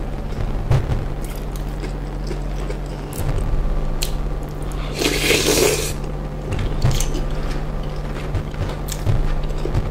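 Close-up mouth sounds of eating a spoonful of soft, wet fish stew: chewing with wet clicks and squishes, and a louder slurping squish about five seconds in, over a steady low hum.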